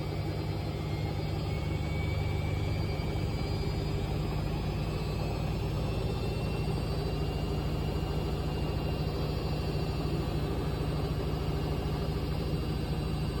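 Washing machine drum spinning with an unbalanced load: a steady motor hum with a faint high whine that creeps up in pitch, getting a little louder about two seconds in.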